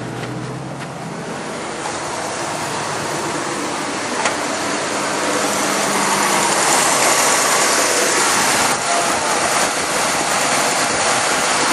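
Oldsmobile 307 V8 of a 1985 Buick Riviera idling steadily, growing louder over the first several seconds and then holding.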